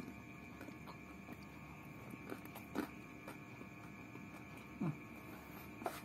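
Close-up eating sounds: fingers picking rice and chicken from a paper food wrapper, and chewing, with a few short mouth smacks or clicks, the loudest about five seconds in.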